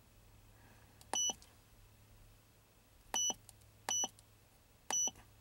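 Four short electronic key-press beeps from an Autel DiagLink scan tool as its buttons are pressed to step back through the menus: one about a second in, then three more in quicker succession near the end.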